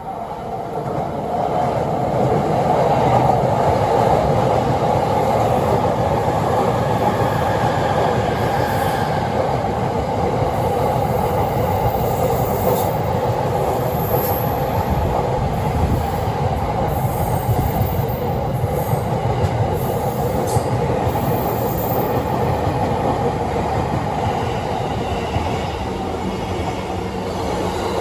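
JR East electric commuter trains passing on parallel tracks, a continuous rumble of wheels on rail that builds over the first couple of seconds and then holds steady.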